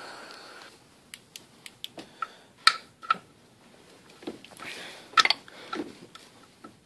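Scattered light clicks and taps of tool handling under the hood as a ratchet with extension is brought to the serpentine belt tensioner; the sharpest taps come about two and a half, three and five seconds in.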